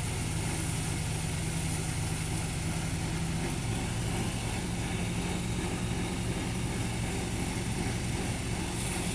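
An engine running steadily at a constant speed, with an even low hum.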